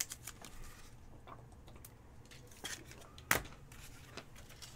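Trading cards and their packaging being handled on a table: scattered small clicks and rustles, with one sharper click about three seconds in.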